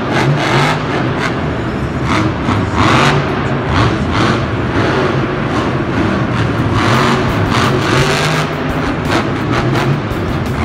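Full-size monster truck engines, supercharged V8s, revving hard and rising and falling as the trucks accelerate, jump and turn on the dirt arena floor.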